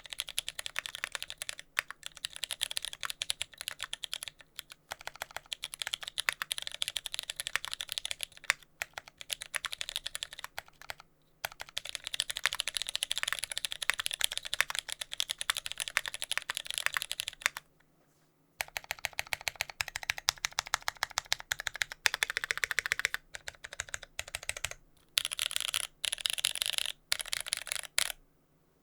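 Typing on a TX65 mechanical keyboard with lubed Cherry MX Brown switches, a brass plate and GMK keycaps, with no sound dampening: dense runs of rapid key clacks broken by short pauses, a longer break about 18 seconds in, and a few short bursts before the typing stops near the end. The tactile bumps are left unlubed, which gives a slight sound like contact-leaf noise.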